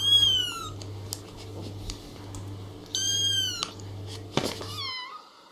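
Kitten meowing: two high-pitched meows about three seconds apart, the first falling in pitch, and a brief third meow near the end. A steady low hum runs underneath and stops near the end.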